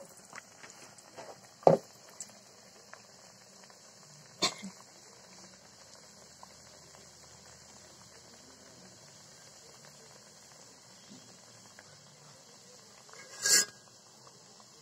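Hot oil sizzling steadily around triangular chicken pitha deep-frying in a wok, a quiet high hiss. A few loud, sharp pops stand out: one about two seconds in, one around four and a half seconds, and a longer one near the end.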